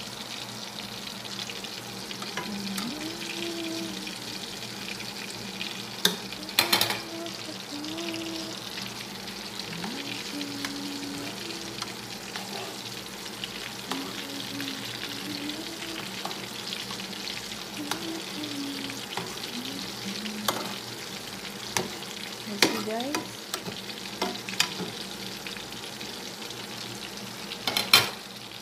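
Battered shrimp frying in oil in a pan over low heat: a steady sizzle and crackle, broken by a few sharp clicks and knocks, the loudest about six and a half seconds in and just before the end.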